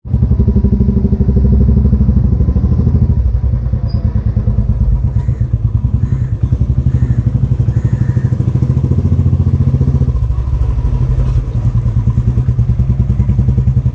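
Motorcycle engine running close up with a fast, even exhaust beat as the bike rides slowly along a street.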